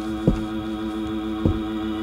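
Soundtrack drone: a steady low droning hum with two deep thumps, a little over a second apart.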